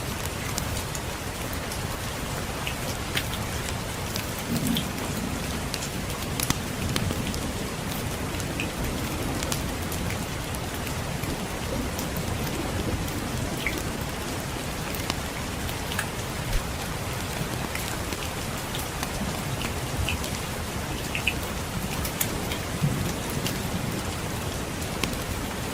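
Steady rain, with scattered sharp clicks and pops through it and a low rumble of distant thunder swelling a couple of times.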